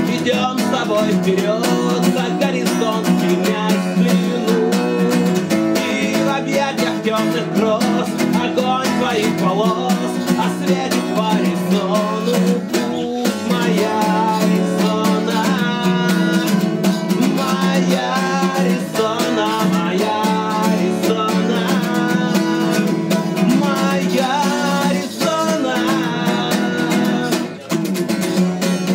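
A man singing live while strumming an acoustic guitar, the voice and chords running continuously, with a brief drop near the end.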